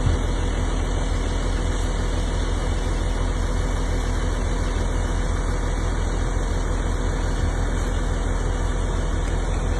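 A heavy engine running steadily at an even speed, deep and unchanging.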